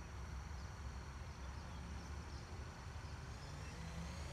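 Outdoor ambience: a low rumble with faint steady high-pitched tones and a few short chirps. A faint rising whine starts near the end.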